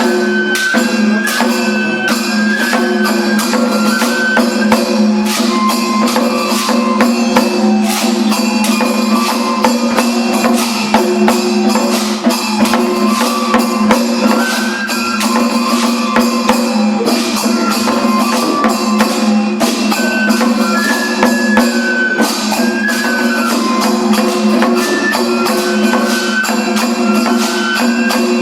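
Daikagura festival music: a high piping melody of held notes over a steady low drone, with quick, dense drum and cymbal strikes throughout.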